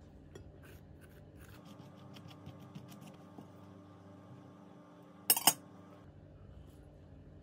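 Light, quick scrapes and clicks of a knife spreading Nutella on a crumpet. A little after five seconds in come two sharp clinks against a ceramic plate, the loudest sounds here.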